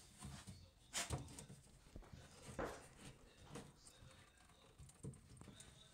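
Faint handling noise: a few soft, short clicks and rubs as a hand grips and twists the plastic slip nut on a PVC sink P-trap to loosen it.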